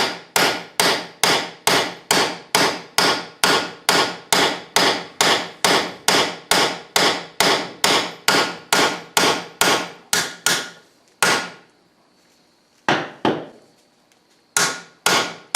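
Hammer blows on a cam bearing installer tool, driving a cam bearing into its bore in an International Harvester 500C dozer engine block. Evenly spaced ringing strikes come about two and a half a second. They stop for a few seconds apart from two lone blows, then start again near the end.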